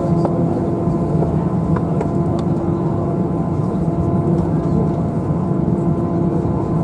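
Airbus A321 cabin noise while taxiing before takeoff: the jet engines and cabin systems make a steady drone with a low hum, heard from inside the cabin. A few faint clicks sound over it.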